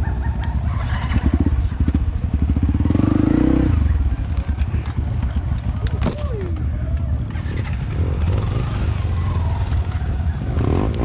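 Yamaha WR155 trail bike's single-cylinder engine running at low speed on a steep dirt descent, its revs rising briefly about two to four seconds in, over a steady low rumble on the helmet microphone.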